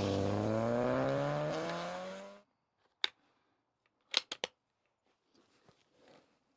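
A car engine revving, rising steadily in pitch and cutting off suddenly about two and a half seconds in. It is followed by one sharp click and, about a second later, three quick sharp clicks.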